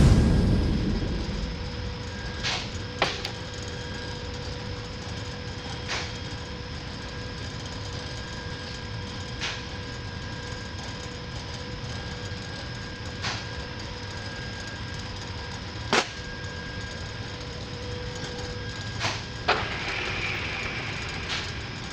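A steady machine hum with several fixed tones and a low rumble, broken every few seconds by sharp clicks and taps. It opens with a loud knock that rings down over about a second.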